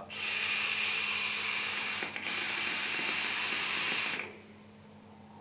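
Claymore rebuildable dripping atomiser (RDA) hissing as air is drawn through its fully open airflow into the coil chamber during a long, tight direct-lung drag. There is a brief break about two seconds in, and the hiss stops about four seconds in.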